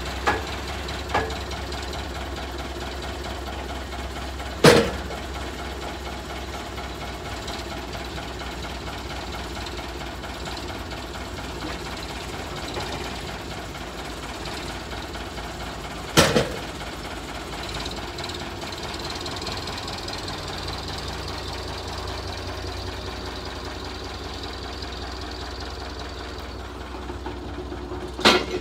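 Backhoe loader's engine running steadily while its forks handle a log, with three sharp bangs spaced about ten seconds apart as the log knocks against the steel bed of the bandsaw mill.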